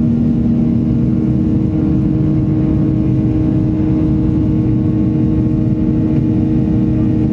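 Jet airliner's engines at high thrust during the takeoff roll, heard from inside the cabin: a loud, steady roar over a low runway rumble, with a steady hum running through it.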